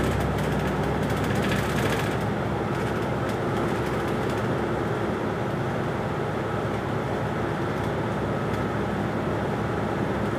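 Steady engine and road noise inside the cabin of a moving city bus, with a faint steady hum under it.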